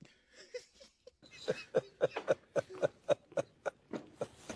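Hard laughter: quick repeated 'ha' sounds, about four to five a second, faint at first and getting louder about a second in.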